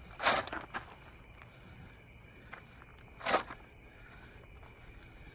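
Squeegee stroking over transfer tape to press a vinyl graphic onto a truck: two brief swishes about three seconds apart, with a few faint ticks between.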